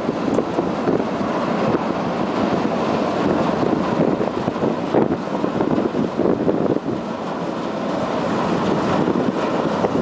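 Wind buffeting the microphone: a rough, gusting noise that swells and dips unevenly.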